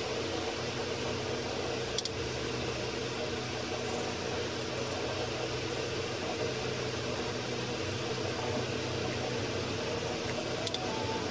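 Steady background hum and hiss, like a running fan, with two brief sharp clicks: one about two seconds in and one near the end.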